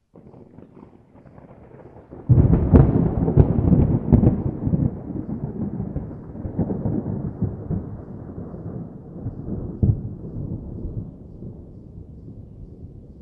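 Thunder: a faint low rumble breaks into a sudden loud crack about two seconds in, with further sharp cracks, then rumbles on and slowly fades, with one more sharp clap near ten seconds.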